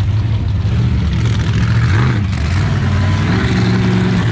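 Monster truck engine running loud and steady, its low drone rising a little in pitch about three seconds in.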